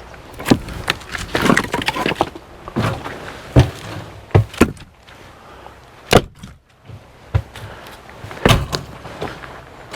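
Firewood knocking and clunking, wood striking wood in about ten sharp knocks at uneven intervals.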